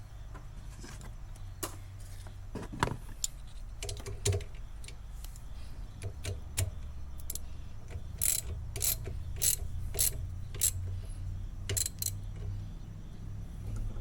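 Sharp metallic clicks from hand tools working the wiper arm's mounting nut: a few scattered clicks at first, then a run of about two a second in the second half.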